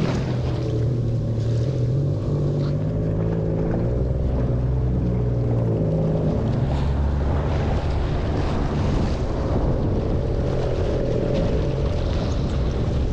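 Jet ski engine running steadily while under way on the water, its pitch shifting up and down a few times, with splashing spray and wind on the microphone.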